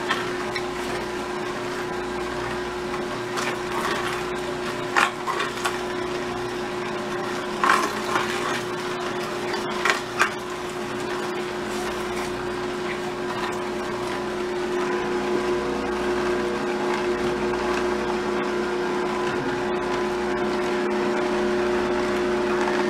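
Vertical slow (masticating) juicer running, its motor giving a steady low hum while the auger crushes carrot and apple pieces, with a few sharp knocks a third and half of the way through.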